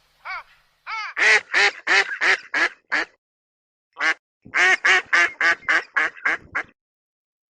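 Duck quacking in rapid series: a single call at the start, a run of about seven quacks, a pause, then another run of about eight quacks.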